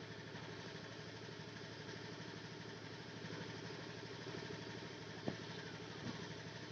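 An engine idling steadily with a fast even pulse, with a single sharp click a little past five seconds in.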